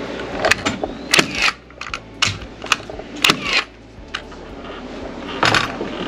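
Nails being driven: a series of sharp, irregularly spaced strikes, about eight in the first four seconds and one more near the end.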